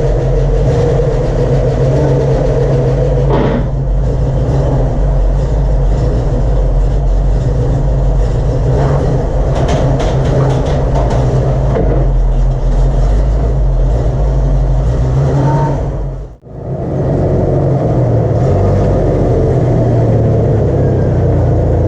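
Car engine and road noise while driving, a steady low drone with a brief break about sixteen seconds in.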